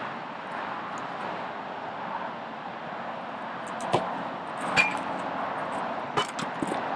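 A soccer ball kicked hard about four seconds in, then striking the metal crossbar with a short ringing clang, the loudest sound. A little after six seconds the rebound is kicked again in mid-air with a bicycle kick, followed by a few lighter knocks, all over steady background noise.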